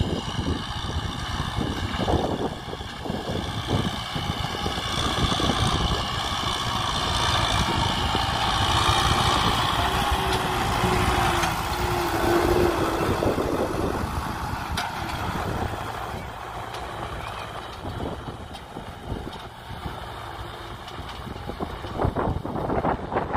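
Kubota M6040SU tractor's diesel engine running under load while it pulls a disc harrow through dry soil. It grows louder as it passes close by in the middle, then quieter as it moves away.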